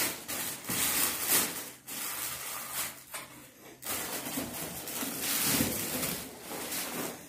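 Rustling and handling of cardboard sweet boxes and packaging, coming in stretches with short breaks.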